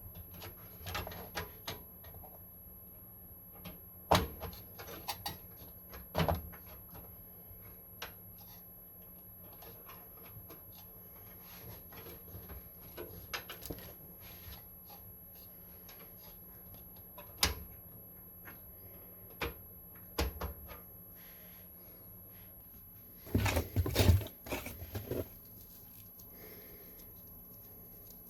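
Scattered clicks, taps and knocks of computer parts and case panels being handled during PC assembly, with a louder burst of rattling knocks near the end.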